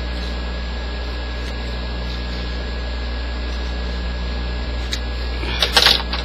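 A steady mechanical hum with an even hiss, like a running fan or other machine. Just before the end come a few sharp crackling clicks from something being handled.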